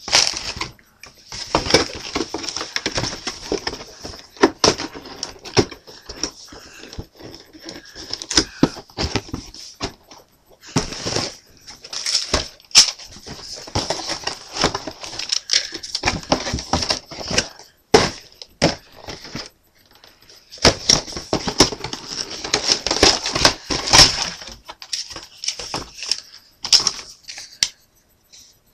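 A plastic model kit's box and bagged parts being handled: irregular rustling and crinkling of plastic and cardboard, with many small clicks and knocks and a few short pauses.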